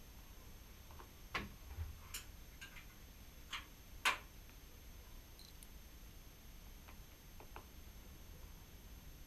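Metal parts and hand tools on an Atlas lathe apron being handled: a few irregular light clicks and taps, the sharpest about four seconds in, then a couple of faint ticks near the end.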